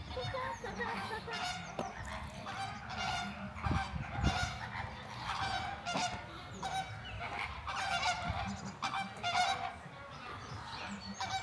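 A flock of flamingos honking, many short calls overlapping one another without a break.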